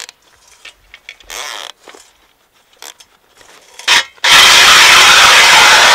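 Cordless drill driving an ice auger: a few faint clicks of handling, then about four seconds in the drill starts and the auger bites into the ice with a loud, steady grinding whir.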